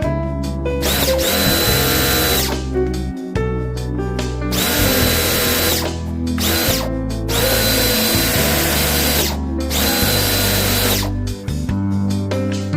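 Power drill running in four short bursts, each whine spinning up and winding down, over background music.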